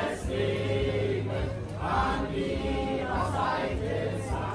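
A choir of men and women singing together without instruments, in sustained held phrases.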